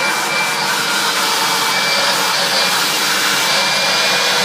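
Hoover upright vacuum cleaner running steadily at full power, a constant rushing airflow with a thin high whine over it.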